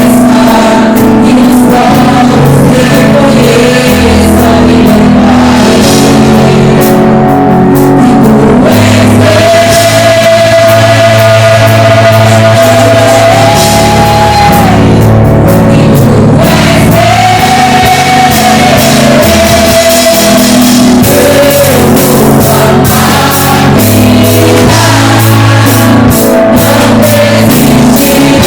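Live gospel worship song: a voice singing long held notes over a full band accompaniment, played loud.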